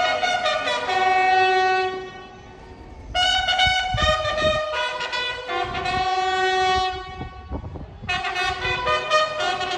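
Military brass, bugle-like, playing a sequence of long held notes that step between a few pitches, with a few low thumps partway through.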